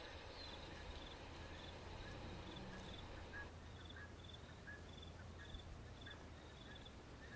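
Faint outdoor chirping: short high chirps repeating about twice a second, with scattered lower chirps, over a low steady hum.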